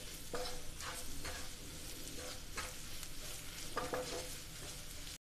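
Wooden spatula stirring and scraping a fried onion-tomato masala around a nonstick frying pan, with repeated scrapes over a steady sizzle of frying oil.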